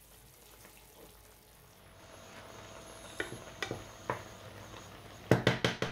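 Mushroom cream sauce in a frying pan, sizzling faintly, the sizzle coming in after about two seconds. A spoon stirring it clicks against the pan a few times, with a quick run of louder knocks near the end.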